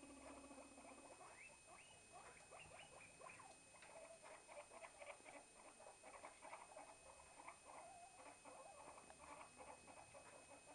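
Small pet rodents squeaking softly: a quick, busy run of short chirps.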